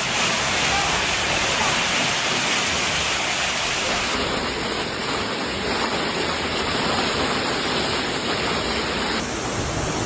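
Steady rush of storm water, its character shifting slightly about four seconds in and again about nine seconds in.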